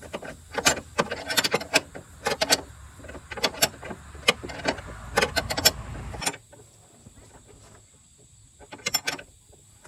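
Hand tools working on the torque mount bolts: irregular metallic clicks and clinks over a low rumble. These stop about six seconds in, and a short cluster of clicks follows near the end.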